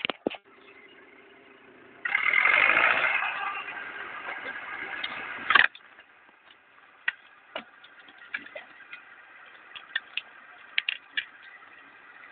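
LKT 81 forestry skidder's diesel engine revving hard for about three and a half seconds; the sound comes in suddenly, eases off and stops sharply. The engine then runs quietly, with scattered sharp clicks.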